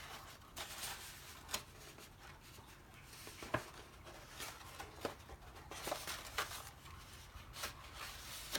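Faint rustling and crinkling of paper petals being handled and pressed into place as they are glued onto a paper rose, with scattered light clicks.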